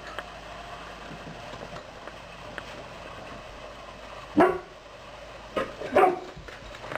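A dog barking a few short times, with two louder barks about four and six seconds in.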